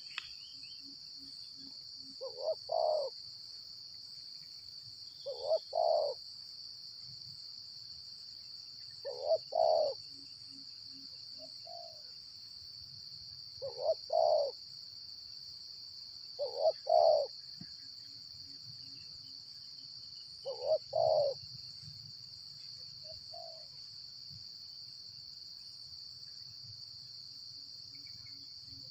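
Spotted dove (tekukur) cooing: a short phrase of two or three notes, repeated about every three to four seconds, with a few fainter single coos between. A steady high-pitched insect drone runs underneath.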